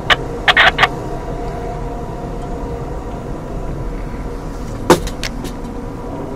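Steady rumble and hum of an Auto Train passenger car in motion, heard from inside the car. A few short sharp sounds come within the first second, and a loud click or knock about five seconds in, followed by a couple of fainter ticks.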